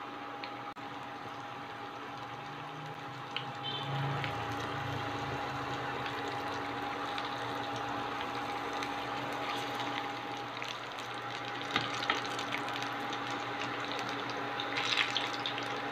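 Banana batter patties sizzling in hot oil in a frying pan, a steady frying hiss with a few sharp clicks of a wooden spatula against the pan near the end. A steady electrical hum runs underneath.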